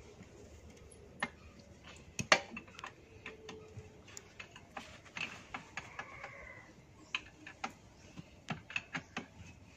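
Scattered light clicks and taps of hand work on the mounting of an electric motor. There is one sharper knock about two seconds in and a quicker run of clicks near the end.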